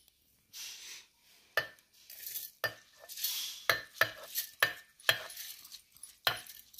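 Soaked rice being scraped by hand off a plate into a steel mixer-grinder jar: grains sliding and pouring in, with repeated sharp clinks of the plate knocking against the jar.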